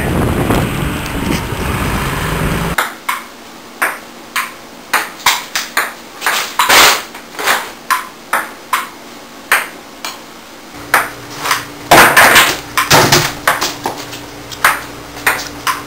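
A steady rushing noise for the first three seconds, then a table-tennis rally: the ball clicking off paddles and the tabletop in a quick back-and-forth, about two hits a second, with a louder flurry of hits near the end.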